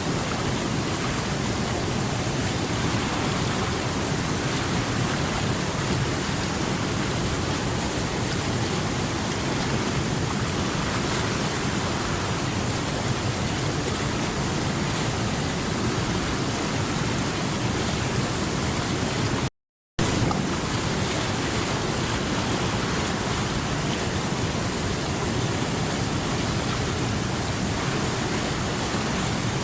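Rushing water flowing steadily over rocks: an even, unbroken roar with no swell of waves. The sound cuts out completely for a fraction of a second about twenty seconds in.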